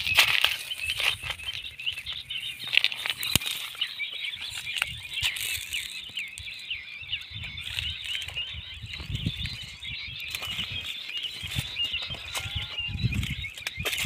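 Small birds chirping rapidly and without a break, high-pitched, with footsteps and rustling through dry leaves and twigs.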